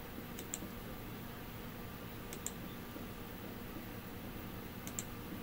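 Computer mouse clicking: three short double clicks, about two seconds apart, over a faint steady room hum.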